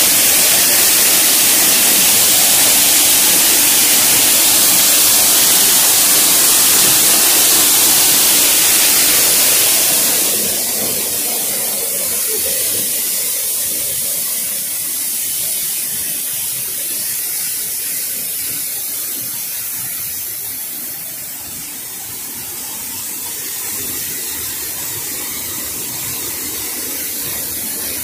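Waterfall rushing: a loud, steady hiss of falling water that drops to a softer level about ten seconds in.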